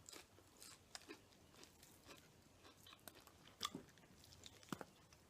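Close-miked chewing and biting of fried chicken: faint, irregular wet mouth clicks and crunches, with two louder bites about three and a half and four and a half seconds in.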